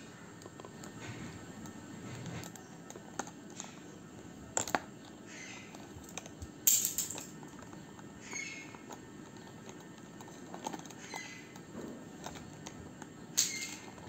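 Plastic pens and markers clicking and rattling against each other in a pen box as a ringneck parrot rummages through them with its beak. There are irregular light clicks throughout, and louder clatters about halfway through and again near the end.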